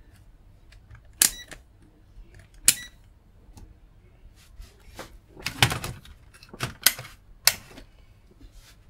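Sharp clicks and knocks from hands handling equipment on a workbench. Two loud single clicks come about a second and a half apart near the start, then a busier run of clacks and knocks in the second half.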